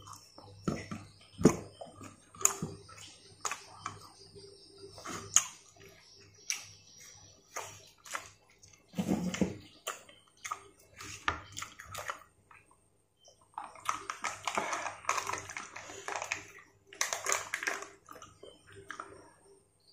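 Close-up eating sounds of a person chewing fried chicken eaten by hand: wet chewing, lip smacks and sharp little clicks. In the second half comes a few seconds of crinkly rustling as a small plastic cup of water is handled.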